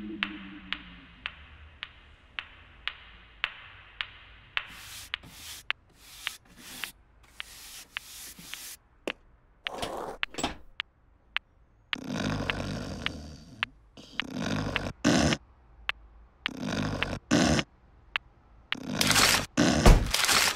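Newton's cradle balls clacking in a steady rhythm, a little over two clicks a second. This gives way to a rhythmic run of scraping, swishing noise bursts, short at first, then longer and louder.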